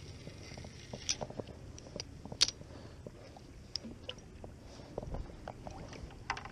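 Handling noise close to a body-worn camera: irregular clicks and brief rustles of a jacket sleeve and a spinning rod being handled. The sharpest click comes about two and a half seconds in.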